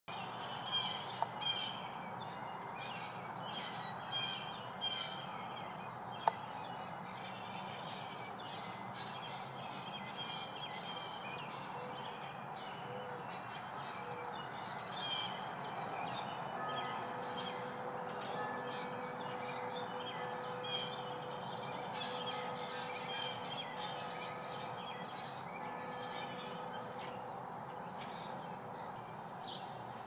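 Birds chirping and calling over a steady outdoor background noise. Two sharp clicks come in the first several seconds, and faint steady tones join about halfway through.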